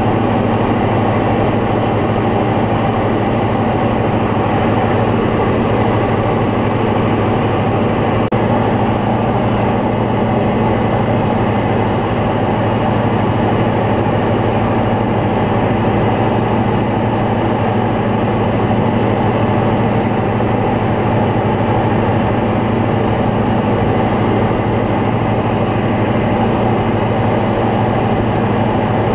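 Single-engine light aircraft's piston engine and propeller droning steadily in cruise, heard from inside the cockpit.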